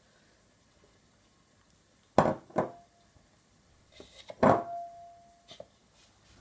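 Kitchen utensil knocking against a dish: two sharp knocks a little past two seconds in, then a few more around four and a half seconds, the loudest leaving a short ring.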